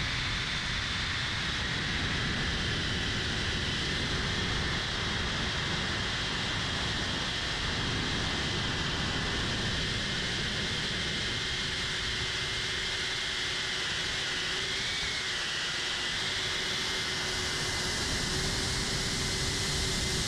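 A 3-inch cinewhoop FPV quadcopter's brushless motors and ducted propellers whine steadily over a rushing noise, picked up by the GoPro mounted on the drone. The whine's pitch wavers briefly a little past the middle.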